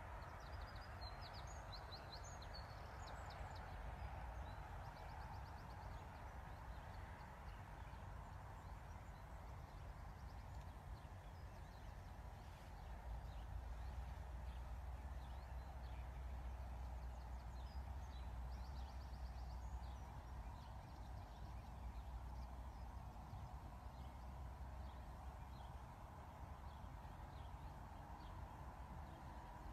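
Faint outdoor field ambience: small birds singing short, rapid trills now and then over a steady background hiss and a low rumble that swells for a while in the middle.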